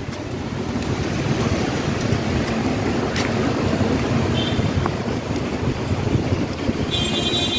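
Steady outdoor street noise: an even rumble and hiss of passing traffic and wind on the microphone, with no distinct events.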